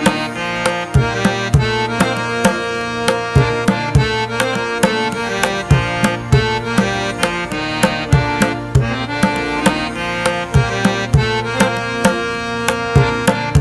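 Background music with a steady, quick percussion beat under melodic instrument lines.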